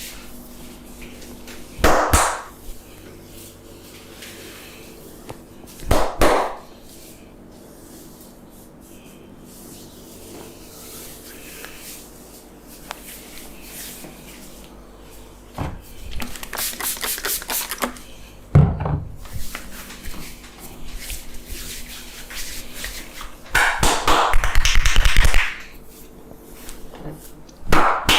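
Hands striking a person's head and back in a barber's massage: a few single loud smacks and two spells of fast rhythmic tapping, the second one louder.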